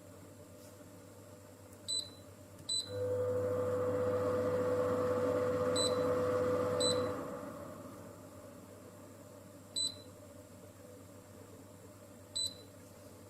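Short electronic beeps from the Philips HU2716/10 humidifier's control buttons, six in all. Right after the second beep a steady fan hum with a clear tone starts, and after the fourth beep it dies away.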